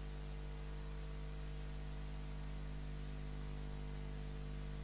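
Steady electrical hum with a low buzz and an even layer of hiss, unchanging throughout: the background noise of the recording, with no other sound.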